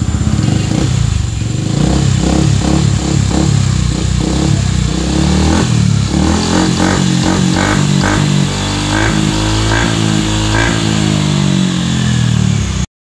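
A 155 cc Yamaha scooter engine running through a JVT titanium aftermarket exhaust, revved in a string of repeated throttle blips that rise and fall in pitch. The sound cuts off abruptly near the end.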